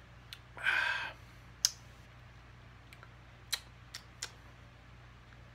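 A drinker's breathy exhale right after a swallow from a can, followed by a few short, sharp clicks, the loudest just after the breath.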